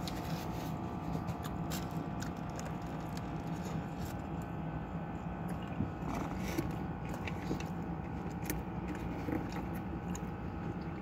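A person biting into and chewing a burger close to the microphone, with small wet clicks and crinkles from the paper wrapper, over a steady low hum.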